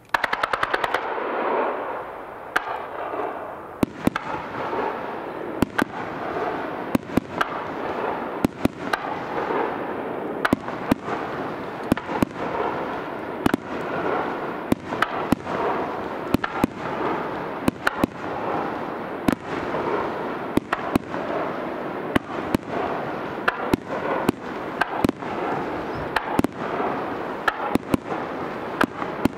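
Aerial fireworks display going off: a sudden rapid volley of cracks at the start, then sharp bangs about one or two a second over continuous noise.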